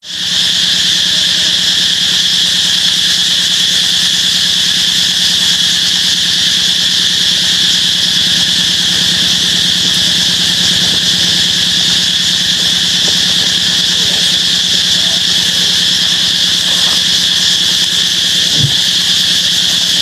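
Loud, steady insect drone: a high, shrill ringing over a low hum.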